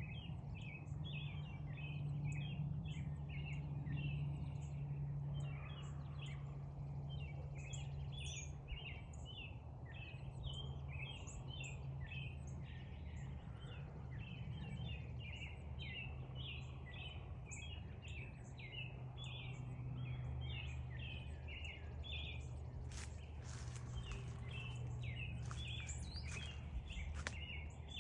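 Northern cardinal singing and calling: a long run of short, repeated chirping notes, several a second, with a few sharper high chips. A steady low hum runs underneath, and a few brief rustles come near the end.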